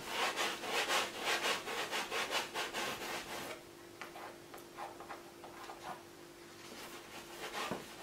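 Paintbrush scrubbing oil paint onto a stretched canvas in quick, scratchy back-and-forth strokes, about three or four a second, which turn fainter and sparser about halfway through. A faint steady hum lies underneath.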